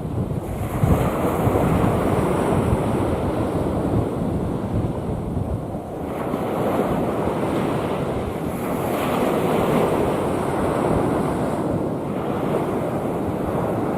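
Rough sea waves breaking and washing in, in a continuous rush that swells with each wave, with wind buffeting the microphone.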